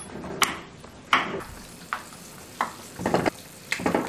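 Kitchen utensils knocking and clattering: about six sharp, irregular strikes less than a second apart, over a steady low hiss.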